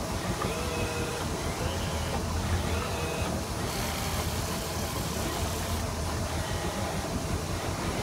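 Boat engine running steadily at low speed, a constant low hum under wind and water noise, with faint short whining notes coming and going.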